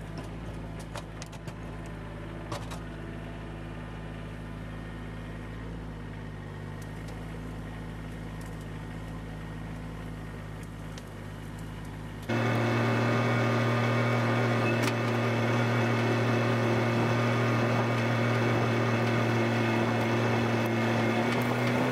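Kubota tractor's diesel engine running steadily under way, with a few light rattles early on; about twelve seconds in it becomes suddenly louder.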